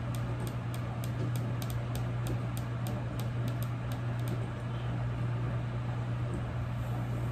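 Microwave oven running, heating a bowl of oats in water: a steady low hum. Faint quick ticks, about three or four a second, sound over it for the first four seconds or so.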